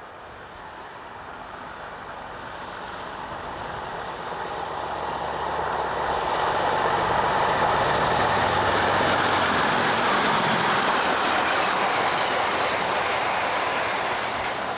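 A pair of British Rail Class 37 diesel-electric locomotives, English Electric V12 engines working under power, approaching and passing with a freight train. The engine noise builds over the first six seconds or so, stays loud, then eases slightly near the end.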